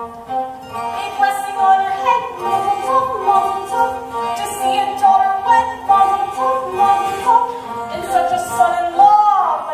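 A girl's solo singing voice in a musical-theatre number, with vibrato on held notes, over instrumental accompaniment.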